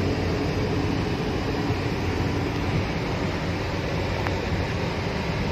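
Road and engine noise inside a moving car's cabin: a steady rumble with a low hum beneath it.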